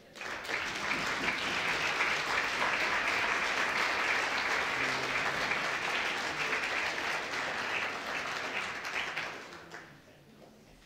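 Audience applauding. It swells right away, holds steady, then dies away at about nine to ten seconds.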